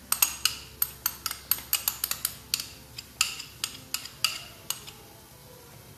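Metal spoon clinking and scraping against a small glass bowl as mayonnaise is scraped out of it into a glass mixing bowl, about three sharp clinks a second, stopping a little before the end.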